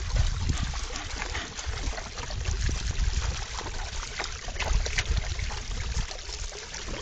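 Shallow stream trickling while a dog wades and noses in the water, with scattered small splashes and a low rumble underneath.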